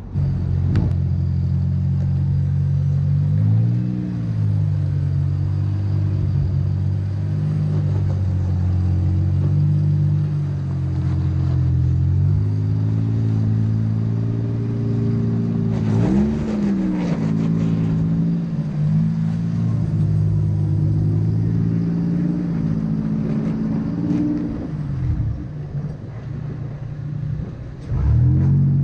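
Rock-crawling truck's engine running at low crawling revs, briefly revved up and back down a few times (about 4, 16 and 24 seconds in) as it works over rock.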